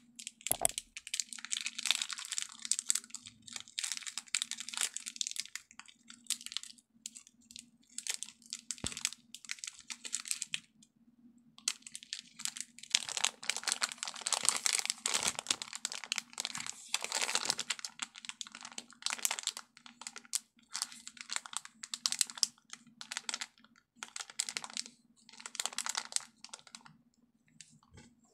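Plastic gummy-candy bag crinkling in irregular bursts as it is handled and turned in the hands, with a short pause about a third of the way in.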